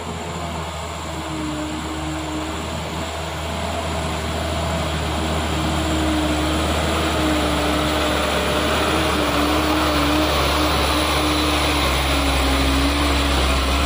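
Mitsubishi Fuso Canter 136 PS light truck, loaded with coal, climbing a muddy slope: its diesel engine labouring at a steady pitch, growing louder as it approaches and passes close by.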